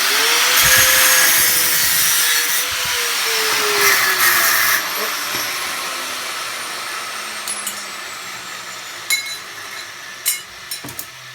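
Handheld power cutting tool cutting scrap metal: the motor whine climbs as it starts, then slowly winds down as the noise fades. Two or three sharp metal clinks come near the end.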